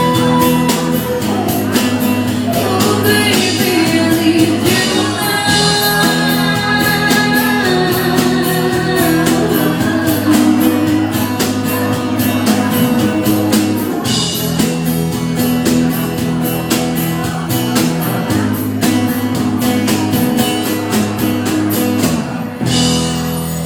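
Live ska band playing, with a singing voice over guitar, bass and a steady drum beat.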